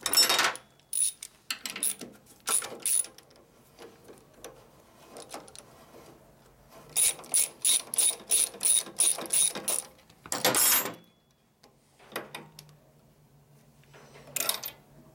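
Socket ratchet clicking as a bolt is turned, with a quick even run of about ten clicks in the middle and a short scrape after it. Scattered clinks of metal tools being picked up around it.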